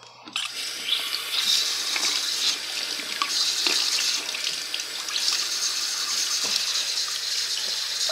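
Bathroom sink tap running steadily into the basin, turned on just after the start.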